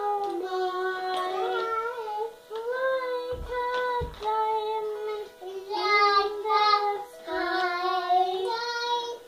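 A young girl singing a melody while plucking the strings of a Kinder Harp, a small children's lap harp, its plucked notes ringing under her voice. Two soft low thumps come a little over three and four seconds in.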